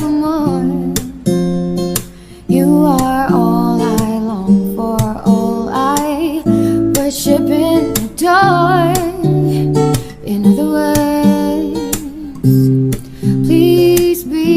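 Background music: acoustic guitar playing a slow jazz song, with a woman singing a wavering melody over it.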